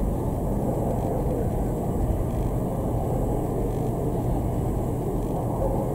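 Eurocopter EC225LP Super Puma helicopter taxiing with its main rotor turning: the steady, low-pitched noise of its turboshaft engines and rotor, with no change in pitch or level.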